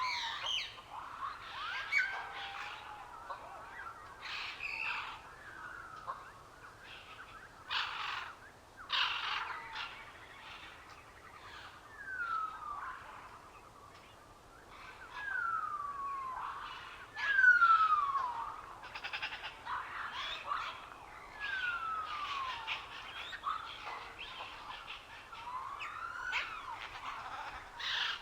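Wild birds singing and chirping, with a clear whistled note that slides down in pitch repeated every few seconds among shorter chirps.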